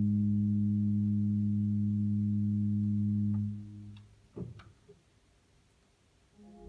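Allen digital organ holding a low sustained chord, which is released about three and a half seconds in. A few faint clicks and a soft knock follow in the near-quiet pause, and a new chord with a pulsing bass begins right at the end.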